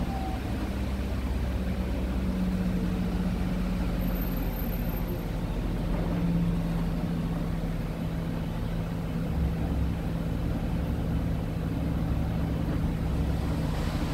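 City bus engine heard from inside the cabin: a steady low hum and rumble with one constant tone, the bus standing in traffic.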